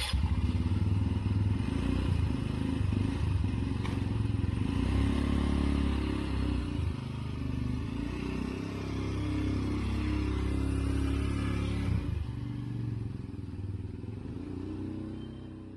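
Engine of a three-wheeled motorcycle with two front wheels, running as it pulls away and rides off, dropping away and fading near the end.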